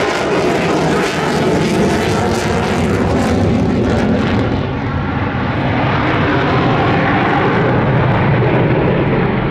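Jet noise from a Boeing F/A-18F Super Hornet's twin General Electric F414 turbofans: a loud, continuous rush. The high hiss dies away about halfway through, leaving a deep rumble.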